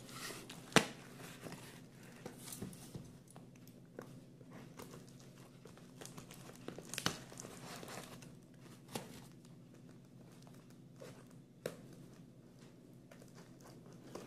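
Scissors cutting through packing tape and brown wrapping paper on a cardboard box, with paper crinkling and tearing and scattered sharp snips and clicks, the loudest about a second in.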